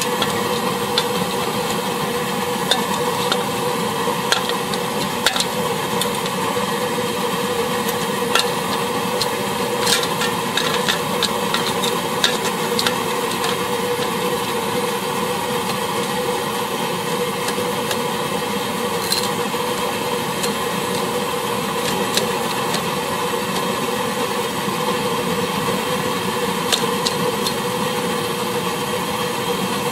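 The petrol burner of an NVA KK 15/72 field kitchen running steadily with a constant hum and hiss. Over it come metal clicks and knocks as a pressure-cooker lid is set on a pot and locked, mostly in the first dozen seconds, with a few more later.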